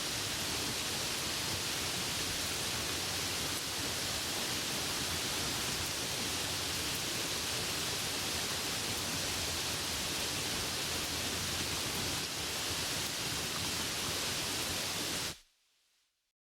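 Steady, dense rain hiss with no distinct drops, dropping away to near silence about a second before the end.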